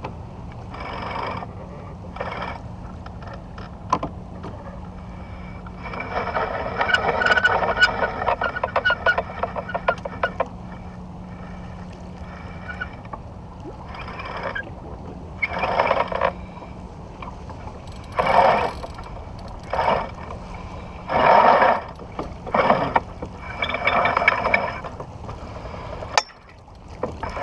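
Wind and water noise aboard a sailboat running under spinnaker. It is broken by repeated bursts of rapid clicking and rasping from the deck: the longest, about four seconds long, comes some six seconds in, and shorter bursts follow in the second half.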